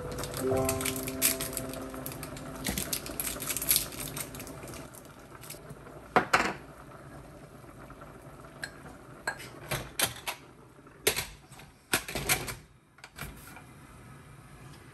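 Cooking clatter at a stainless-steel pressure cooker: scattered metal clicks and knocks, a small spoon tapping in a salt pot, and the pressure cooker lid being set on with a few sharp clicks.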